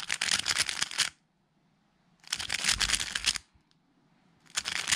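A MoYu RS3M 2020 magnetic 3x3 speedcube being turned fast through an F-perm algorithm, the setup-into-T-perm version, in three bursts of quick clacking turns about a second long each, with short pauses between. The third burst begins near the end.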